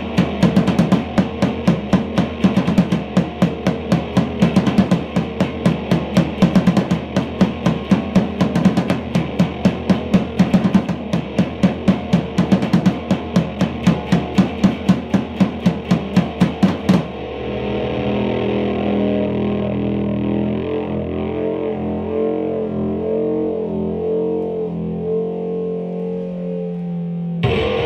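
Punk rock played live on a drum kit and electric guitar, the drums beating fast and steady. The drums stop sharply about 17 seconds in, leaving the electric guitar alone, its chords ringing out and shifting in steps until a brief break near the end.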